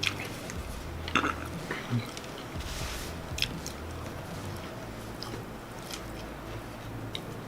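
A person biting into and chewing a fried chicken sandwich up close, with several louder bites in the first few seconds and softer chewing after.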